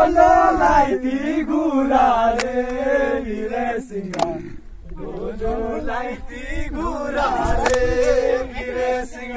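Several voices singing a song together, with long held notes and a brief lull about halfway through; a few sharp clicks are heard over the singing.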